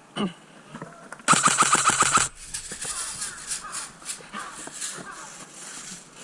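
Airsoft gun firing one full-auto burst of about a dozen rapid shots lasting about a second, followed by lighter scattered clicks and rustling.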